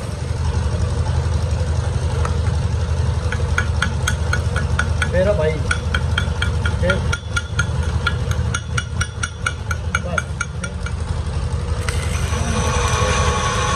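A steady low machine hum, with a run of rapid, even ticking from about three to eleven seconds in. About twelve seconds in, stick (arc) welding starts at the axle-to-flange joint with a steady crackling hiss.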